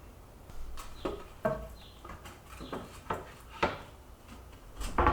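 A series of separate wooden knocks and clunks, about seven, irregularly spaced, the loudest near the end: a wooden window sill board being handled and knocked while it is trimmed and test-fitted.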